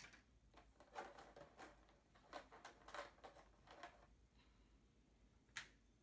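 Faint handling of plastic toy parts and packaging: a run of small clicks, taps and rustles from about one to four seconds in, and one sharper click near the end.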